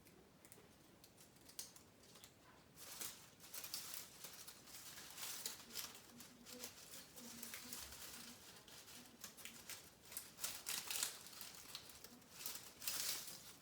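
Holly and pine foliage rustling and crackling as sprigs are handled and pushed into the arrangement: a string of short, scratchy crackles that come and go, starting a couple of seconds in.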